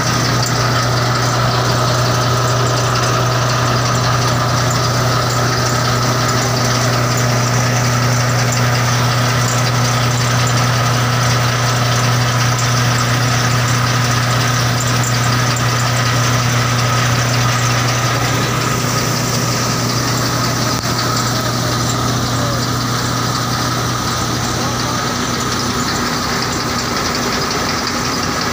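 Tractor-driven grain thresher running steadily: a constant engine hum mixed with the whir of the thresher's spinning shafts, pulleys and belts. The hum shifts slightly about two-thirds of the way through.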